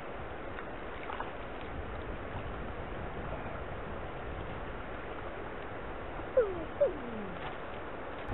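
Steady rush of flowing river water. About six and a half seconds in come two short calls, each falling in pitch, from an animal.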